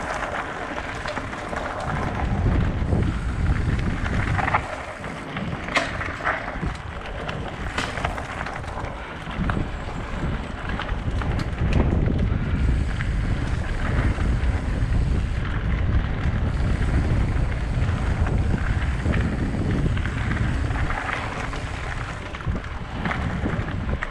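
Focus Jam e-mountain bike descending a gravel forest trail, heard through a GoPro Hero 7: steady wind buffeting the microphone over tyres on loose gravel, with a few sharp clatters from the bike over bumps.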